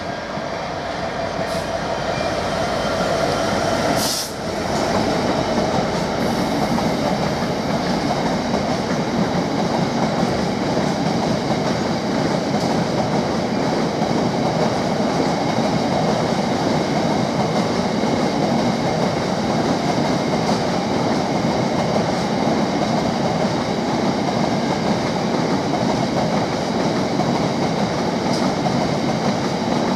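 GB Railfreight Class 66 diesel locomotive 66720, with its two-stroke EMD V12 engine, going past in the first few seconds, followed by a long train of covered hopper wagons rolling steadily by. There is one sharp clack about four seconds in.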